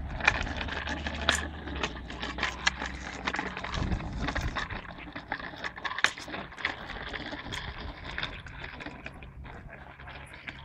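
Child's small bicycle with training wheels rolling over a concrete path: a steady scraping and rattle from the wheels, with irregular clicks and knocks throughout.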